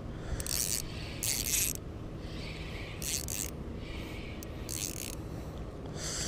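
Spinning reel working against a hooked fish: five short rasping, whirring bursts, about one every second and a half, over a steady low rumble.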